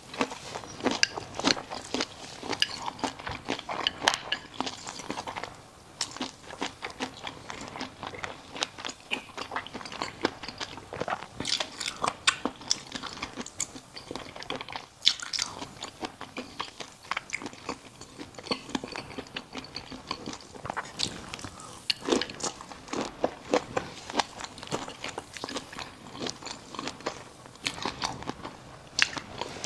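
Close-miked eating: a person biting into and chewing crunchy food, a dense run of sharp crunches and crackles with short lulls about six and fifteen seconds in.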